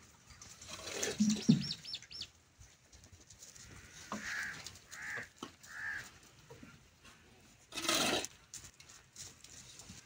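Goats feeding at a wooden trough while dry feed is poured in from a bowl, with a short rush of pouring feed near the end. Birds chirp and call three times, about a second apart.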